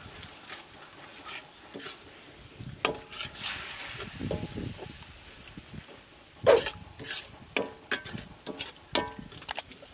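A metal ladle scraping and knocking against a wok as a thick sauce is stirred, in a run of short, sharp, irregular sounds, the loudest about six and a half seconds in.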